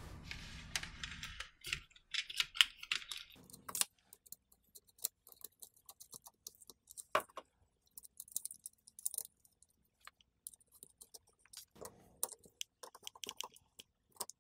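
Small metal tools, a screwdriver and needle-nose pliers, clicking and tapping on the terminal screw and nut of a battery pack's fuse link. Many quick, irregular clicks.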